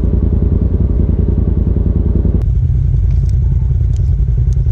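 Side-by-side UTV engines running at trail speed: one machine's engine, then an abrupt switch about two and a half seconds in to another machine's engine, deeper and duller, with a few light clicks.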